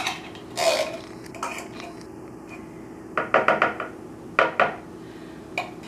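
Metal spoon scraping and clinking against the inside of a tin can as thick condensed cream of chicken soup is dug out, with clusters of quick rattling taps about three seconds in and again a little over four seconds in.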